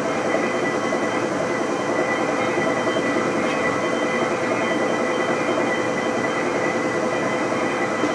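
Tuda Jumbo 1250/4000 engine lathe running with its spindle turning under power: a steady hum of the geared headstock and 30 HP drive, with several constant whining gear tones on top.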